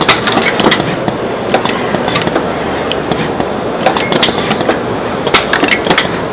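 Pneumatic grippers and slides of an O-ring assembly machine cycling, giving quick, irregular clacks and clicks over a steady background of voices and hall noise.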